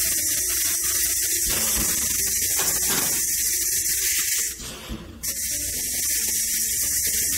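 Steady hiss of compressed gas flowing through a gas lift valve test bench while the valve is held under test pressure. The hiss cuts out for about half a second near the middle, then resumes.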